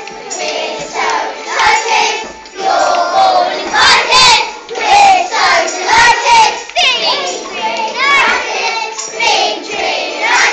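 A group of young children singing together, many voices at once with the loudness rising and falling from phrase to phrase.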